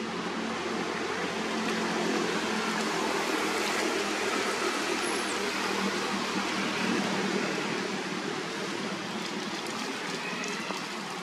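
Steady rush of running water, even throughout, with a faint low hum under it and a brief high chirp about five seconds in.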